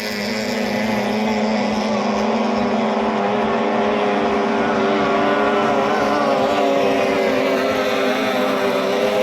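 Racing boat's 18 hp outboard motor running steadily at speed, its pitch wavering slightly, over a hiss of wind and water.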